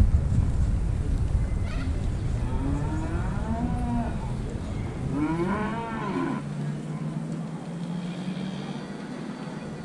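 Beef cattle mooing: two calls that rise and fall in pitch, the second louder and longer. Low wind rumble on the microphone fills the first half.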